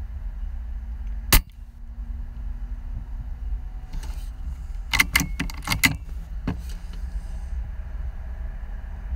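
A single sharp air rifle shot about a second and a half in, followed a few seconds later by a quick run of about six clicks and knocks, over a steady low rumble.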